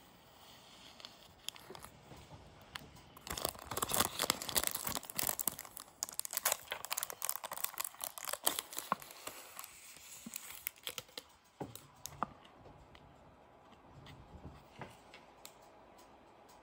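Clear plastic cellophane wrap being torn and crinkled off a cardboard eyelash box: a dense crackling from about three seconds in until about eleven seconds, then only a few light rustles and taps.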